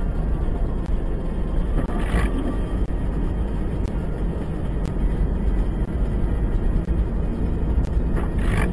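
Steady low rumble of a car driving on a snowy road, picked up by its dashcam. Two short hissing swishes come about two seconds in and again near the end.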